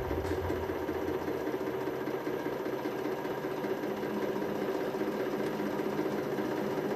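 100-ton hydraulic press running with a steady mechanical hum as its ram comes down onto a small cast anvil and begins loading it.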